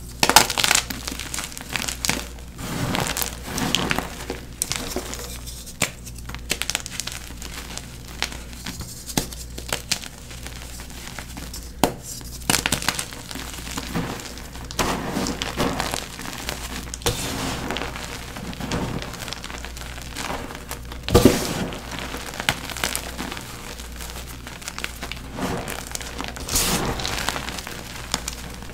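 Blue-dyed NEXO gym chalk blocks crumbling and crunching: an irregular run of dry crunches and crackles with a few sharp snaps, the loudest a little past two-thirds of the way in.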